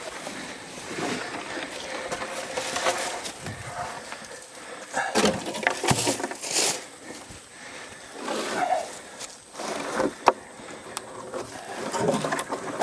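Scattered scrapes and knocks of a wooden board and a jack being handled and set under a vehicle, heaviest about five to seven seconds in, with a sharp click about ten seconds in.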